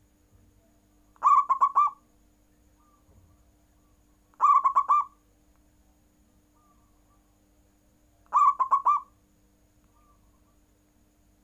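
Zebra dove (perkutut) cooing: three short cooing phrases, each a quick run of pulsed notes lasting under a second, spaced about three and a half seconds apart.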